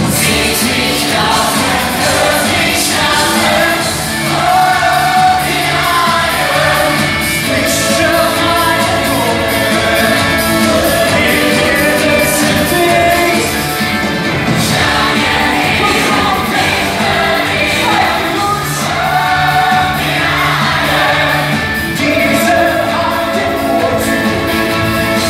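Live musical-theatre medley: singers over a loud band backing with a steady beat, picked up on a phone's microphone in the audience.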